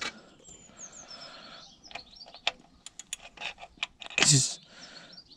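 Socket ratchet on an oil-pan bolt, giving scattered single clicks and knocks of metal on metal as it is fitted and worked. A short voice sound, a grunt or murmur, comes about four seconds in, and birds chirp faintly.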